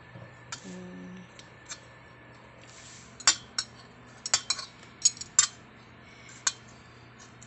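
Metal spoon and fork clinking and scraping against a stainless steel pot while scooping rice: about a dozen sharp clinks, most of them bunched in the middle.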